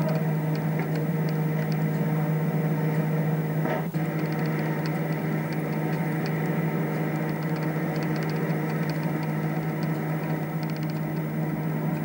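Steady machinery hum with a strong low tone and overtones, and faint light ticking over it; a brief dropout with a click about four seconds in.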